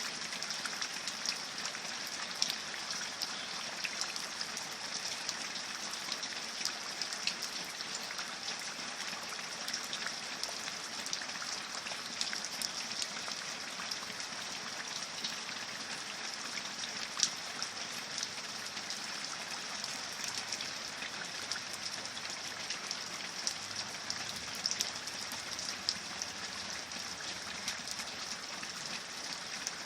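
Steady rain falling, a constant wash with many small, sharp drop ticks scattered through it.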